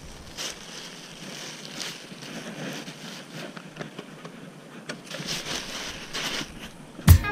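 White plastic drawstring bag crinkling and rustling as hands untie it and pull it off a bundle of basketballs. Loud music with a strong beat comes in near the end.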